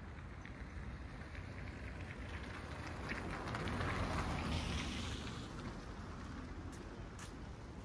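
A vehicle passing on the street, its tyre and engine noise swelling to a peak about halfway through and fading again, over a steady low city hum.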